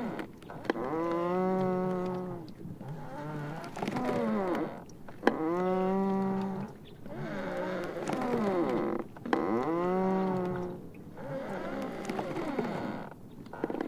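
Sea ice floes rubbing against each other, giving long, pitched, moaning squeals that bend up and down in pitch. Three strong ones come about four seconds apart, each starting with a sharp crack, with softer groans between them.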